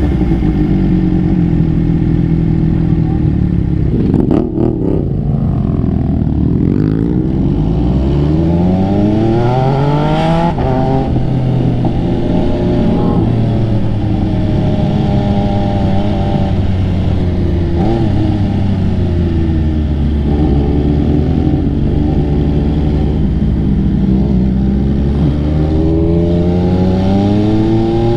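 MV Agusta sportbike's three-cylinder engine heard from the saddle while riding, revs climbing for several seconds and dropping with a gear change about ten seconds in. It then runs at a steady cruise, dips briefly, and climbs again near the end.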